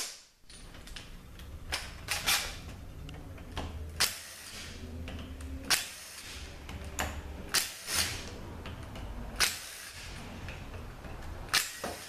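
Sharp metallic clicks and clacks, about nine spread irregularly, from a socket tool working the bolts of a 66RFE transmission's aluminium oil pump as it is taken apart, over a low steady hum.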